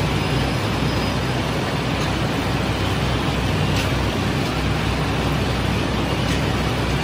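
Bakery machinery running steadily: a constant low motor hum under a continuous rushing noise, with a couple of faint clicks.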